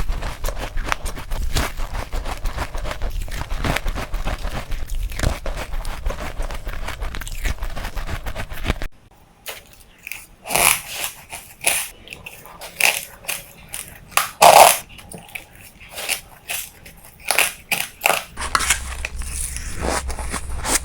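Close-up crunching and chewing of white ice. For about the first nine seconds there is dense, rapid crackling over a low hum. After that come separate sharp bites and crunches, the loudest about fourteen seconds in.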